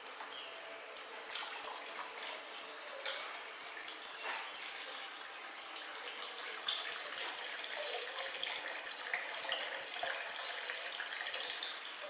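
Water sloshing and trickling in a plastic bucket as a hand moves about in it, with scattered small clicks; it grows louder after about six seconds.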